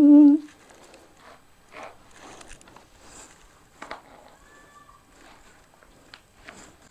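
Faint rustling of trouser fabric and scattered light clicks and taps as a belt buckle is handled and fastened at the waist.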